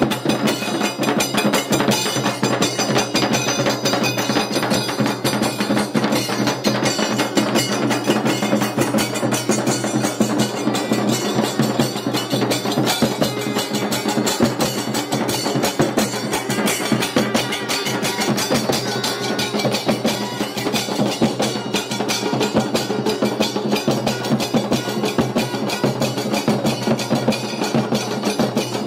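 Temple procession percussion music: fast, continuous drumming with sharp clacking and ringing strikes over steady sustained low tones.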